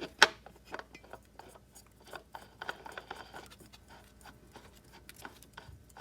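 Light clicks and scraping from oil filter parts being handled by hand, with one sharper knock just after the start and irregular small ticks after it.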